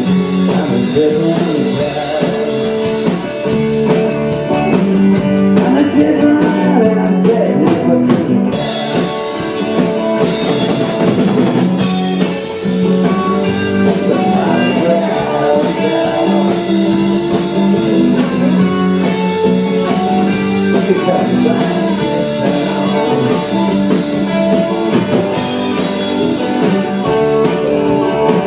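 A live band playing a blues-rock song, with guitar over a drum kit keeping a steady beat.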